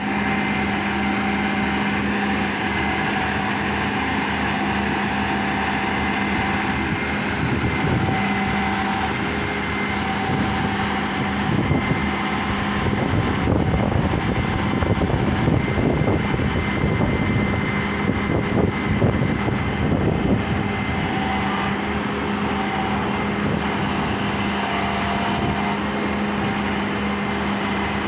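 Truck-mounted concrete pump running steadily with a constant engine hum, and a stretch of irregular rattling and knocking through the middle.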